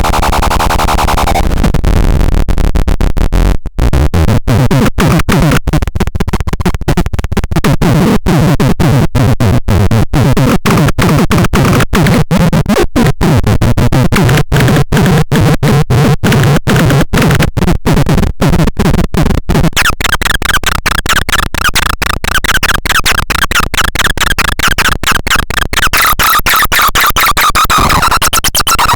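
Loud, harsh electronic synth noise, chopped into stutters by many brief cut-outs, turning into a denser warbling tone near the end.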